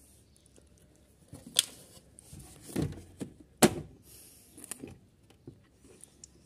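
Hands handling a rubber fuel hose against a scooter's plastic body: a few sharp clicks and knocks with a duller thump between them, the loudest click about three and a half seconds in.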